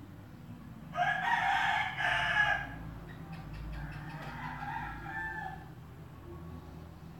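A rooster crowing twice: a loud crow about a second in, then a fainter one a couple of seconds later, over a low steady hum.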